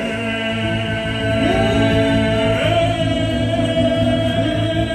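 Male voices singing one long held note together in harmony, live on stage, the lower parts moving while the top note holds.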